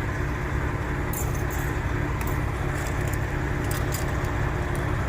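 Small metal parts, a hose clamp among them, clinking and jingling as they are handled, in a scatter of light clinks from about a second in. Under them is the steady low rumble of a truck engine idling.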